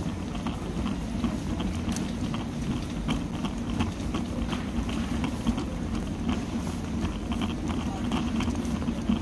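Busy supermarket ambience: a shopping trolley rattling as it is pushed along the floor, many small clatters over a steady low hum, with faint shoppers' voices.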